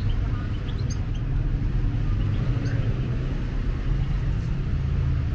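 Steady city street traffic: a continuous low rumble of passing cars and motorbikes, with a few faint short high chirps in the first second or so.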